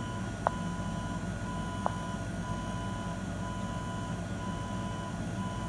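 Venus Bliss body-contouring machine running during a treatment: a steady hum with a thin high tone that cuts in and out about once a second, and two light clicks about half a second and two seconds in.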